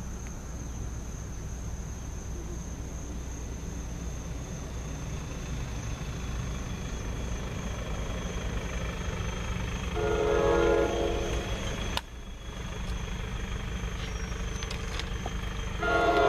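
Horn of an approaching NJ Transit commuter train, sounded for a grade crossing: a short chord about ten seconds in and a longer blast starting near the end, over a steady low rumble.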